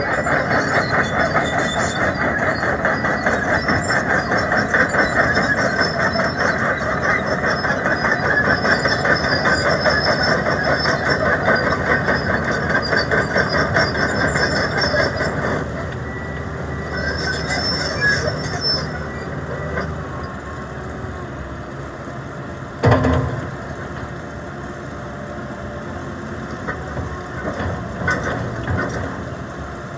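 Komatsu PC190LC-8 hydraulic excavator's diesel engine running hard for the first half, then settling lower and quieter toward idle. A single sharp clank about two-thirds of the way through.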